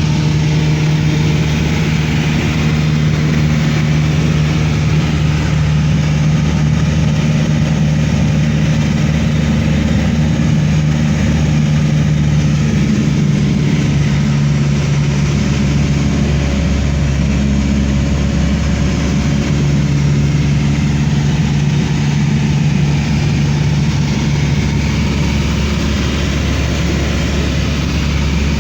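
Steady engine drone heard inside a passenger aircraft cabin in flight: a loud, even hum with several steady low tones over a constant rushing hiss.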